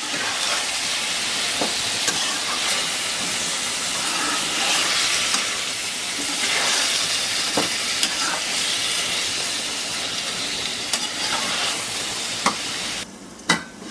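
Mutton liver with onions and ginger-garlic paste sizzling in hot oil in a pan while being stirred, the spatula clicking now and then against the pan, as the water the liver released cooks off. The sizzle drops away abruptly about a second before the end.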